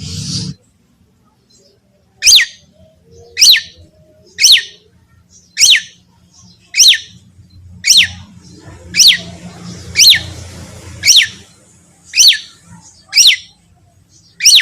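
Long-tailed shrike (cendet) calling over and over: a single sharp note sweeping steeply downward in pitch, repeated about once a second, a dozen times.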